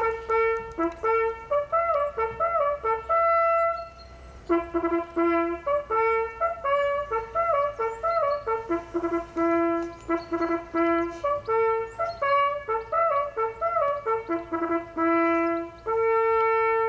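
Hunting horn blowing a signal: a melody of quick and held notes on a few fixed pitches, with a short break about four seconds in, ending on one long held note.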